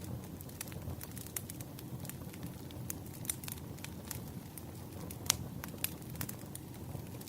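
Wood fire burning, with a steady low rumble and frequent irregular crackles and pops of burning firewood; the sharpest pop comes a little past five seconds in.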